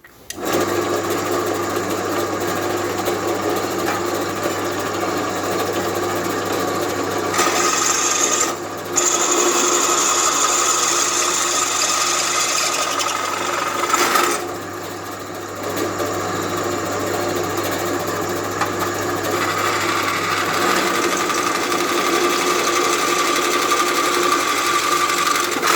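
Bench drill press starting up and running with a steady motor hum, its bit drilling a hole, with harsher high-pitched cutting noise coming and going as the bit is fed in, strongest about a third of the way in and again in the last few seconds.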